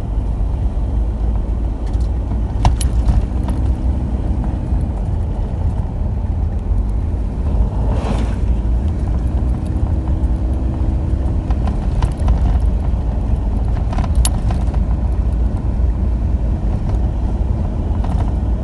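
Steady low rumble of a moving car, road and engine noise heard from inside the cabin. Two sharp clicks, one a few seconds in and one about fourteen seconds in.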